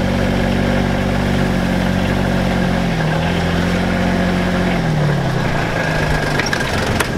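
Farm tractor's diesel engine running steadily, heard from inside the cab; its pitch drops about five seconds in as the engine slows.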